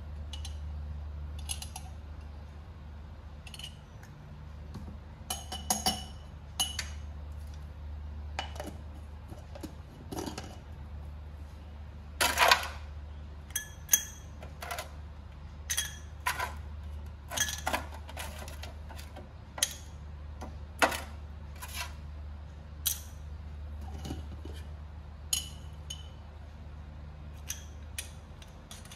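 Scattered clinks and taps of a drinking glass, a glass jar and metal tongs as ice and lemon slices go into the glass. The loudest knock comes about twelve seconds in, and a steady low hum runs underneath.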